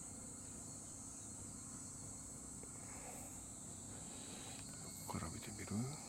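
Steady high-pitched chorus of insects, with a brief low vocal sound from a man near the end.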